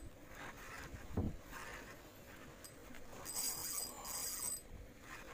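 A spinning reel being worked by hand: a dull thump about a second in, then two short whirring spurts of the reel a little over three and four seconds in.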